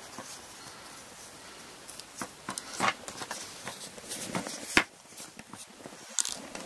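Small handling sounds of hand-sewing a zori's fabric toe post: thread pulled taut, light rustles and ticks, and one sharp click a little before five seconds in.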